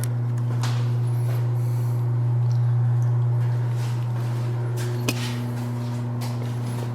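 A loud, steady low hum that does not change, with a few faint clicks, one a little after half a second in and a sharper one about five seconds in.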